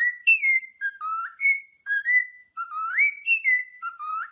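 Parrot whistling a run of clear short notes, several of them sliding sharply upward, repeated over and over.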